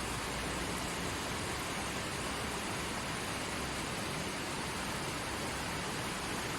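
Creek water flowing over rocks, a steady unbroken rush.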